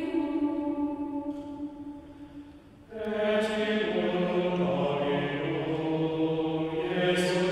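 Choral chant music: voices holding long notes that fade away over the first three seconds, then a new chord comes in and is held.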